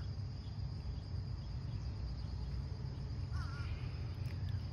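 Outdoor ambience of crickets: a steady high insect drone over a low rumble, with a short warbling chirp about three and a half seconds in.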